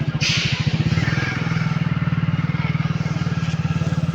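Motorcycle engine running at a steady speed, its exhaust pulsing evenly, with a brief hiss just after the start.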